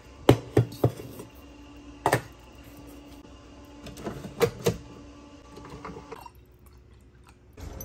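Sharp plastic clicks and knocks as a Keurig 2.0 coffee maker is handled and loaded with a K-cup, its lid lifted and pressed shut, with a glass jar set under the spout. There are three quick clicks at the start, one about two seconds in and a cluster a little after four seconds, over a faint steady hum.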